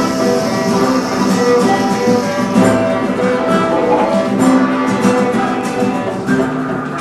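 Primary school ensemble playing live instrumental music, with plucked-string notes over held tones and many quick percussive taps. The music dies away near the end.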